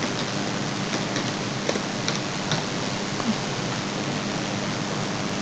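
Steady hiss of background noise, with a few faint, irregular clicks of computer keyboard keys as text is typed.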